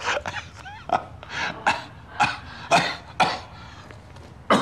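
A man coughing in a harsh, repeated run of short coughs, about two a second, a persistent cough that he has been complaining of.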